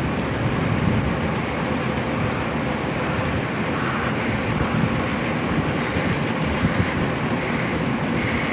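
Steady low engine rumble from the vessels, with a faint even hum and no break or change.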